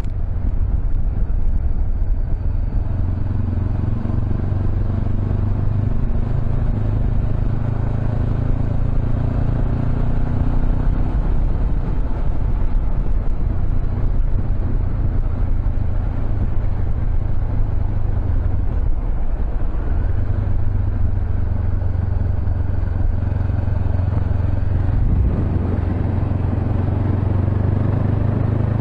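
Honda CB500X motorcycle's parallel-twin engine running steadily under way, a constant low drone with a brief easing about two-thirds of the way through.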